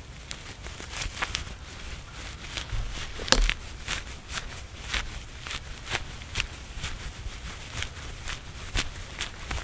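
Dry shredded bark crackling and rustling in the hands as it is packed into a cloth bag and the bag is crumpled, an irregular string of sharp crackles, the loudest a few seconds in.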